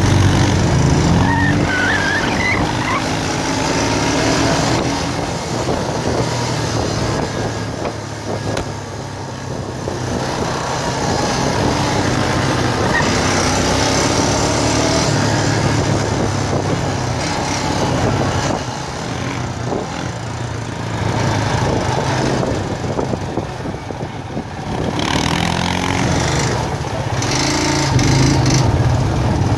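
Four-wheeler (ATV) engines running along a trail, the engine pitch rising and falling repeatedly as the throttle opens and closes.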